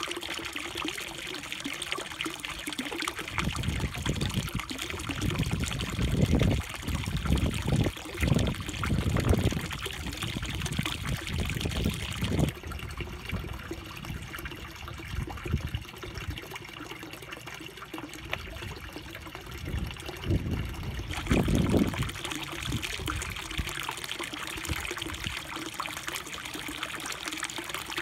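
Water steadily trickling and splashing into a koi pond from an inflow, under a faint steady hum. Uneven low rumbles come and go over it, heaviest from about four to twelve seconds in and again around twenty-one seconds.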